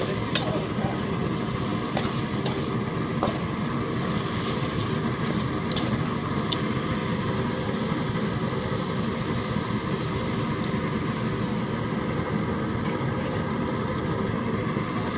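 Slotted metal spoon scraping and clinking against an aluminium pot as spiced dove meat is stirred, with a few sharp clinks in the first several seconds, over a steady low rushing noise.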